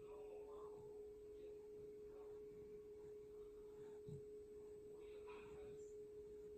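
Near silence with a faint steady hum on one constant tone, and a few faint soft rustles.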